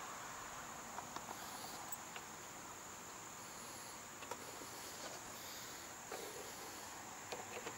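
Faint, steady insect chirring, with a few light clicks of small mower wheel-drive parts being handled.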